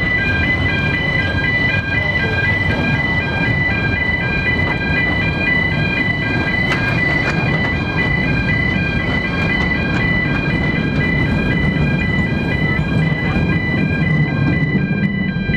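A level crossing warning alarm sounding, an electronic two-tone signal switching rapidly back and forth, over the low, steady rumble of narrow-gauge railway coaches rolling past on the street-running track.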